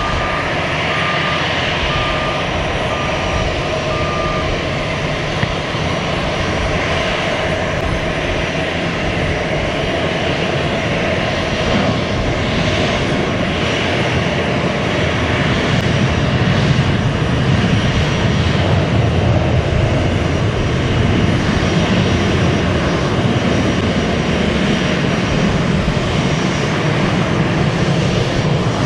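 Airbus A320-214 airliner's CFM56 turbofan engines running at low taxi power, a steady rush that grows louder and deeper in the second half as the aircraft comes closer. A reversing alarm beeps evenly for the first few seconds.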